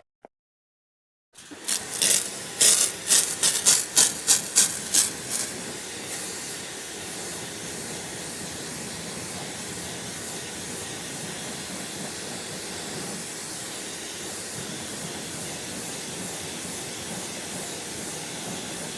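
Pressure washer jet rinsing wheel cleaner off a car wheel: a burst of about eight loud spurts of spray, then a steady hiss of spray for the rest.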